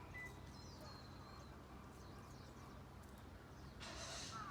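Faint outdoor ambience with distant bird chirps, and a short burst of rustling noise near the end.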